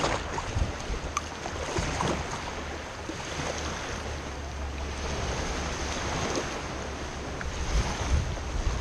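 Small waves washing and breaking over a shingle beach in shallow water around a kayak. Wind buffets the microphone with a low rumble throughout.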